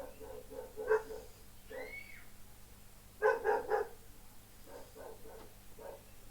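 Dog barking in short, quick barks, with a brief whine about two seconds in; the loudest run of barks comes a little after three seconds in.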